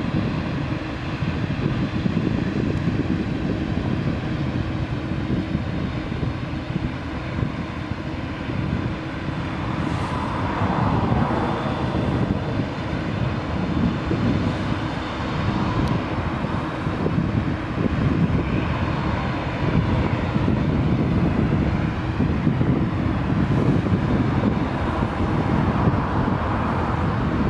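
Boeing 787 Dreamliner's turbofan engines running at low thrust while the airliner taxis onto the runway and lines up. The sound is a steady rumble with a faint whine over it.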